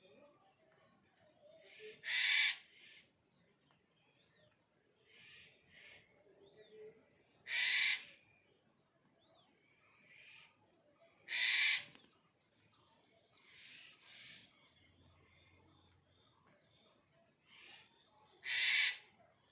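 Black-headed jay giving four harsh, rasping screeches several seconds apart, over a steady high insect trill.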